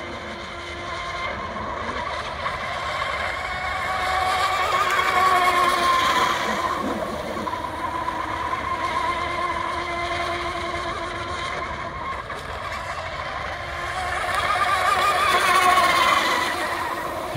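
Electric RC hydroplane running at speed: its brushless motor and propeller give a whine that wavers in pitch and grows louder twice as the boat passes.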